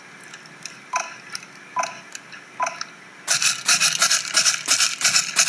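Three short beeps about a second apart, recorded as sync beeps, then, from about three seconds in, a fast rhythmic crinkling of a plastic grocery bag crushed in the hands as foley for running footsteps on grass.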